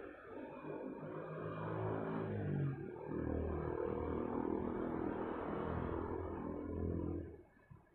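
A motor vehicle's engine running nearby. It grows louder over the first few seconds, holds steady, then falls away quickly near the end.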